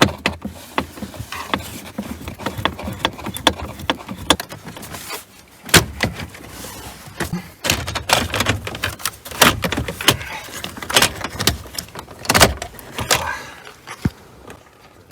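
Irregular clicks, knocks and rattles of the plastic lower dashboard trim on a SsangYong Kyron being unscrewed and worked loose by hand, with a few louder sharp knocks.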